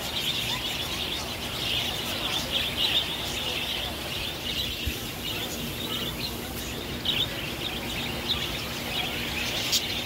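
A flock of budgerigars chattering: a dense, unbroken twitter of short, high chirps.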